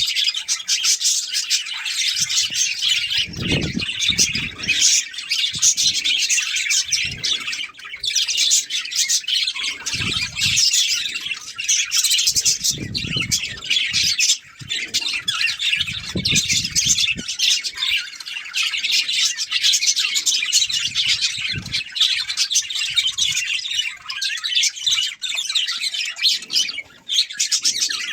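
A flock of budgerigars chattering and chirping continuously, a dense, unbroken twittering.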